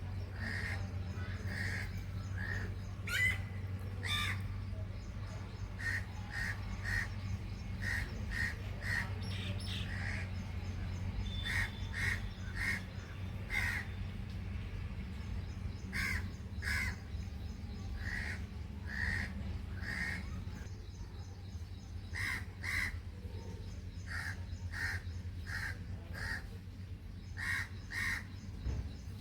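Crows cawing over and over, short calls often in quick runs of two to four, over a steady low hum.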